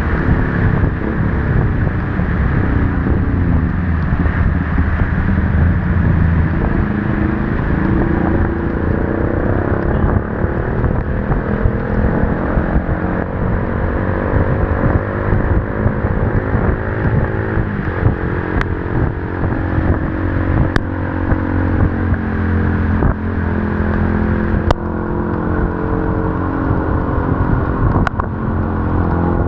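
Motorcycle engine running under way, its pitch rising gradually as it speeds up through the middle, over a steady rush of wind and heavy-rain noise on the camera. A few sharp ticks come through in the second half.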